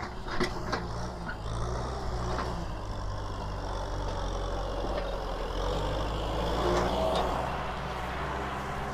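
Kubota farm tractor's diesel engine running steadily as it drives past towing a loaded trailer, growing louder as it comes closest about seven seconds in. A few sharp knocks sound in the first second.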